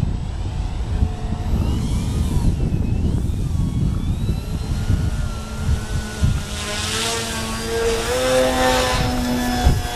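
Remote-control model airplane's engine whining overhead, its pitch wavering up and down as it flies, with strong wind buffeting the microphone. The whine grows louder and steadier in the last few seconds.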